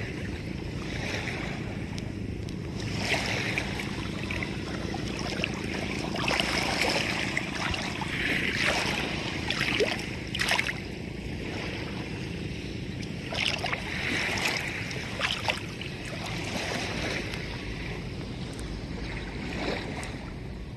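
Steady low rumble with water washing and gusts of wind noise on the microphone, swelling and easing irregularly.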